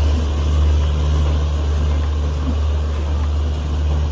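Steady low engine hum from the Tejas Express train standing at the platform, whose luggage-brake and generator car runs its diesel generators, over a general platform noise haze.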